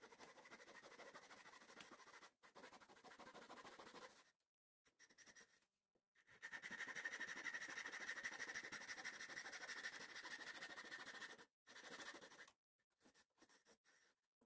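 Small hand tool scraping back and forth across the wooden bulkhead frames of a model ship hull, a dry rasping in several stretches with short pauses; the longest and loudest stretch is in the middle, and it ends in a few short strokes.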